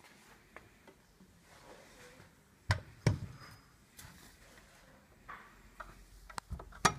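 Metal doors of a Viadrus Hercules DUO solid-fuel boiler being handled, giving sharp knocks and latch clicks. The two loudest come close together a little under three seconds in, lighter clicks follow, and another sharp knock comes near the end as the lower door is taken and swung open.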